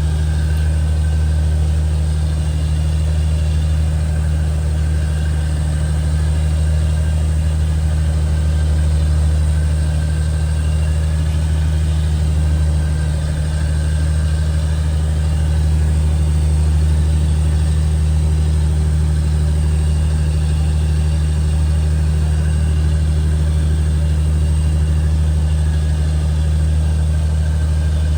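Fishing boat's engine running steadily under way: a constant, loud low hum that holds the same pitch throughout.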